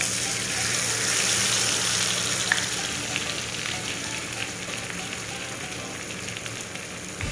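Masala-marinated fish frying in hot oil in a pan: a dense sizzle that starts up abruptly as the fish goes in, loudest in the first couple of seconds and then easing slightly, with scattered crackles and pops.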